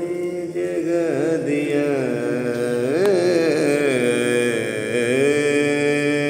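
A man singing a naat, drawing out long held notes without clear words. The notes waver and swoop in pitch about every two seconds.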